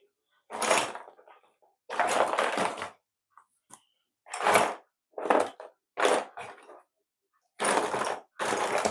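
Plastic construction-kit pieces being handled and fitted together: a series of short rattling, clicking bursts, about seven, in an irregular rhythm.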